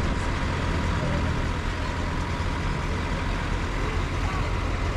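City bus engine idling with a steady low rumble, amid street traffic noise.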